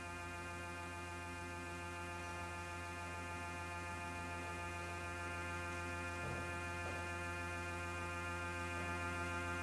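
Laptop-generated electronic drone: a steady low hum with many sustained tones layered above it, slowly swelling in loudness.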